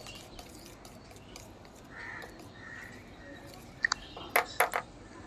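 A crow cawing: a few short, harsh calls in quick succession about four seconds in, with fainter bird calls before them.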